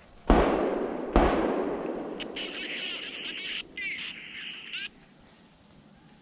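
Two shotgun or rifle shots about a second apart, each with a long rolling echo through the woods, from a driven boar hunt. They are followed by a couple of seconds of high, wavering animal calls that break off suddenly.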